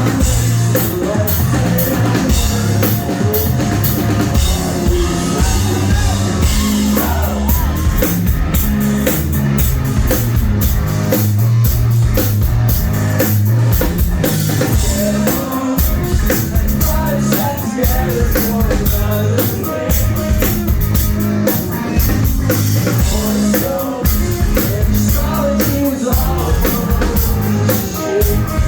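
Live rock band playing loud, with a driving drum kit, bass and guitars and a singer heard in places, as picked up by a phone in the crowd.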